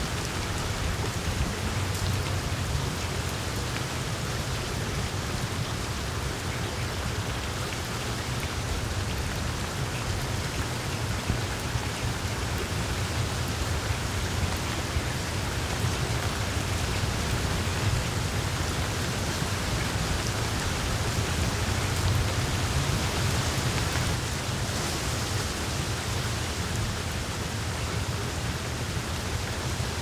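Steady rain falling: an even hiss with a low rumble underneath.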